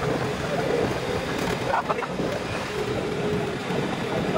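Steady engine drone and road noise from on board a motorcycle-based three-wheeler as it rides along the street.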